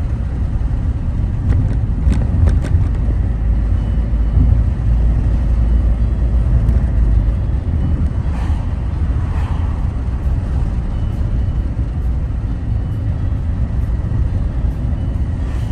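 Steady low rumble of a car driving, heard from inside, with a few light clicks about two seconds in.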